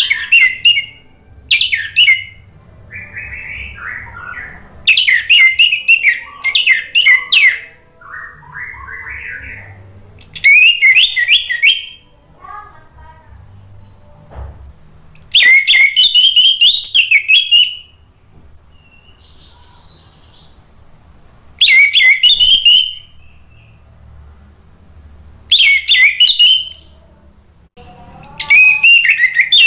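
Orange-headed thrush (anis merah) singing loud, fast, warbling song phrases of one to two and a half seconds, repeated every few seconds. Softer, lower twittering comes in between some of them.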